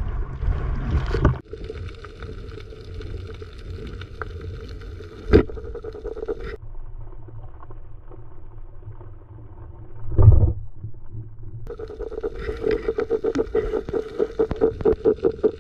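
Muffled underwater noise picked up through a waterproof action-camera housing: water rushing and sloshing, changing abruptly several times between clips. There is a sharp knock about five seconds in and a heavier thump about ten seconds in. Near the end comes a quick run of even pulses, about four a second.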